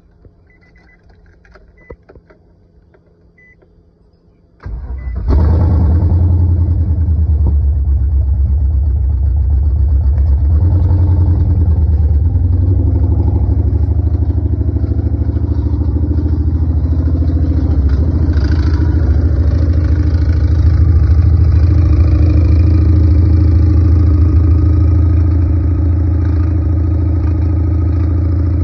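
A few faint short beeps, then the Infiniti G35's V6 engine cranks briefly and catches about five seconds in and runs steadily. The running engine carries a noise that the owner has not yet identified.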